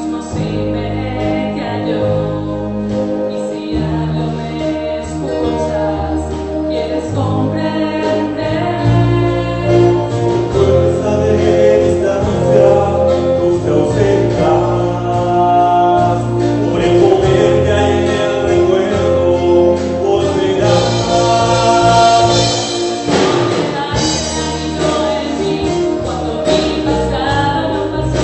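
Christian pop-rock worship song performed by a band: women's voices singing together over electric guitars, keyboard and drums.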